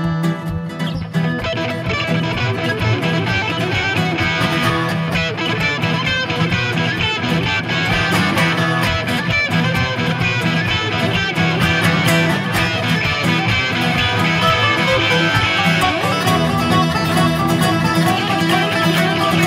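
Viola caipira and electric guitar playing a fast instrumental rock duet, with dense picked notes over a steady low note.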